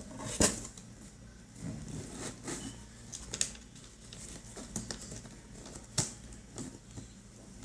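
Scattered small clicks and rustles of a package being handled and sealed by hand, with sharper ticks shortly after the start and about six seconds in.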